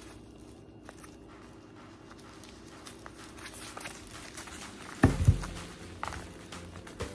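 Handling noises with two loud low thumps close together about five seconds in, and a smaller knock near the end.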